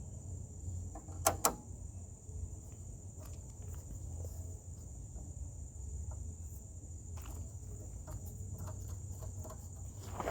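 A steady high-pitched insect drone over a low hum, with two sharp knocks close together about a second and a half in and a few faint clicks afterwards.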